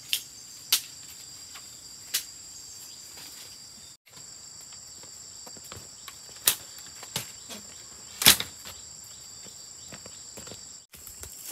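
Steady shrill insect chorus, like crickets, holding two high pitches, with several sharp knocks or taps scattered through it, the loudest about eight seconds in. The chorus cuts out briefly twice.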